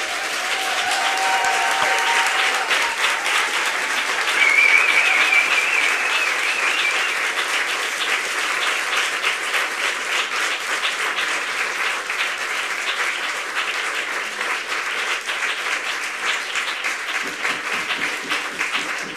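Audience applauding steadily with dense, sustained clapping. A high, wavering tone rises above the clapping for a few seconds about four seconds in.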